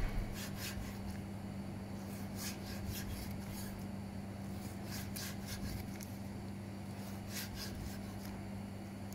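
A kitchen knife slicing raw meat against a plastic cutting board: short scraping strokes, some in quick pairs or threes, over a steady low hum.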